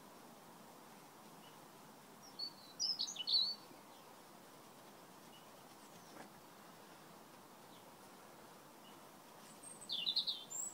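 A small songbird singing two short bursts of quick, high chirping notes, about two seconds in and again near the end, over a faint steady background hiss.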